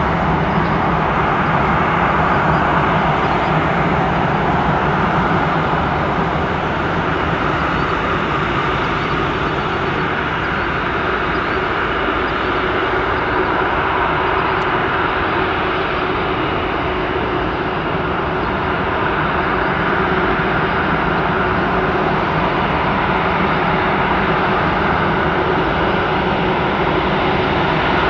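The two Rolls-Royce Trent 772B turbofans of an Airbus A330-243 running steadily at low thrust as the airliner taxis.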